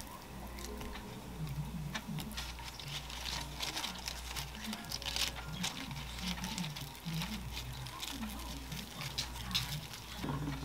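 Soft rustling and light, irregular crinkly taps of hands laying lettuce leaves and apple slices onto a sandwich on parchment paper, over a faint steady low hum.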